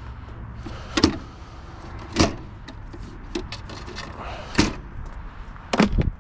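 Scrap metal and wire from an air conditioner being handled and dropped: four or five sharp clanks and knocks a second or so apart, over a low steady hum.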